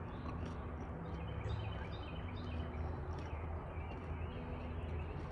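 Outdoor ambience: small birds chirping now and then over a steady low rumble.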